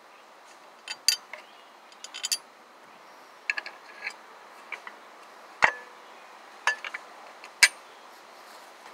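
Steel bolts and hardware clinking and tapping against a Dirty Dingo slider engine mount plate as they are fitted by hand, in irregular sharp clicks and small clusters; the two loudest knocks come a little past the middle and near the end.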